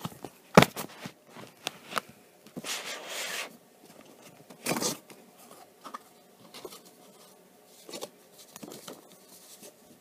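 An old cardboard box being handled and opened: a sharp knock about half a second in, then scattered taps and the rustle and scrape of cardboard flaps and paper.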